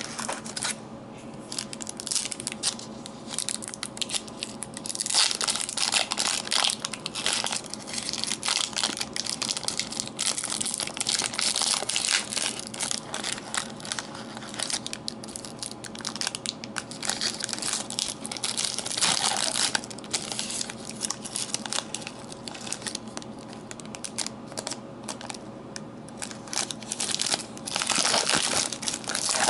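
Foil wrappers of trading-card packs being torn open and crumpled in the hands: a near-continuous crinkling crackle that swells louder several times, loudest near the end.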